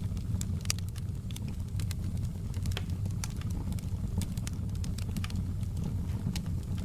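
Wood fire crackling in a fireplace: a steady low rumble of the burning with irregular sharp pops and snaps scattered throughout.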